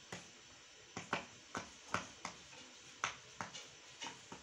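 Silicone bubbles of a pop-it fidget toy being pressed in by finger, one after another: about a dozen sharp, irregularly spaced pops.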